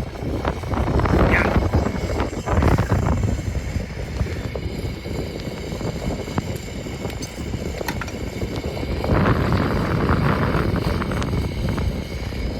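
A stuck car's engine running and revving as the car is driven to work free of deep snow, getting louder twice in swells.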